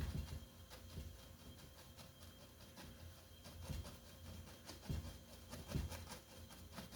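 Faint paintbrush strokes and dabs of acrylic paint on canvas, with a handful of soft knocks against the canvas and easel at uneven intervals.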